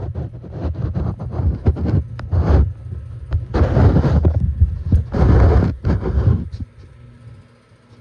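Heat pump outdoor unit running in heating mode, its fan airflow buffeting the microphone in loud gusty swells over a low rumble. The gusts ease near the end, leaving a quieter steady hum.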